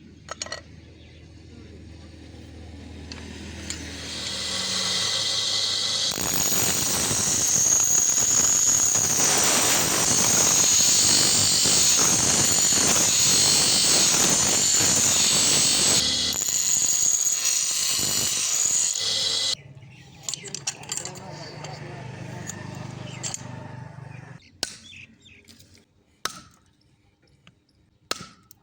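A power tool, likely a grinder or sander working metal, builds up to a loud, steady grinding noise with a high whine and holds it for about fifteen seconds. It cuts off suddenly, leaving a lower hum and a few sharp clicks near the end.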